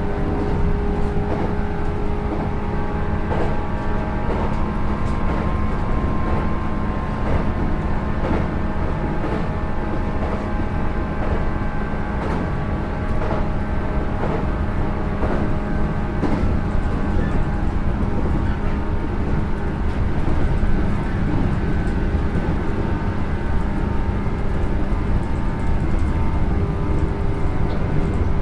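JR 107 series electric train (resistance-controlled motor car KuMoHa 107-110) running at a steady speed, its traction motor and gear whine held at a constant pitch, with scattered clacks from the wheels over rail joints.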